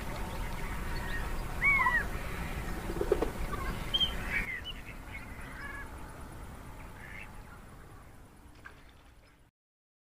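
Ducks calling with short, scattered quacks over steady low background noise; the sound fades and cuts off shortly before the end.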